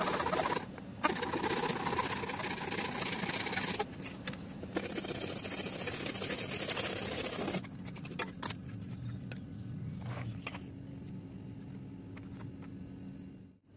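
Hacksaw blade sawing through a hard-plastic RC car body, a steady scraping that runs for about the first seven seconds, easing off about four seconds in. After that it is much quieter, with a few light clicks as the plastic parts are handled.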